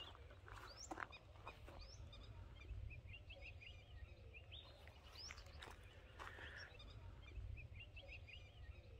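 Faint birds calling, with short rising chirps at irregular intervals, over a low steady rumble.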